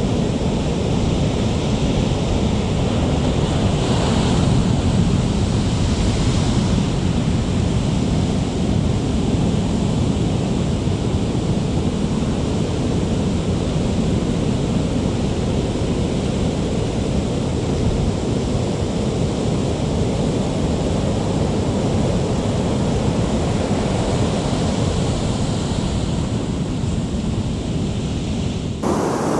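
Ocean surf breaking and washing in, with wind rumbling on the microphone; a brighter wash of a breaking wave about four to seven seconds in. The sound changes abruptly just before the end.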